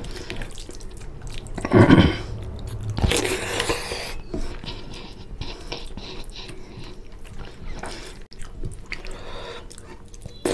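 Wet squishing of fingers mixing rice into curry on a plate, with chewing and biting. The loudest sounds come about two and three seconds in.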